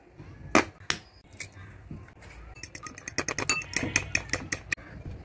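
A metal fork beats egg in a small ceramic bowl: a fast run of clinks against the bowl, about ten a second, for a couple of seconds in the second half. Before that come two sharp knocks of crockery, about half a second and a second in.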